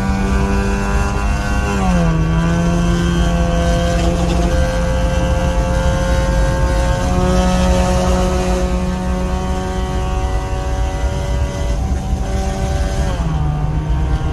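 Honda City's four-cylinder engine through a straight-pipe exhaust with a valvetronic valve, heard from inside the cabin while cruising. It holds a steady droning note that creeps slowly up in pitch, with a quick dip about two seconds in and another near the end.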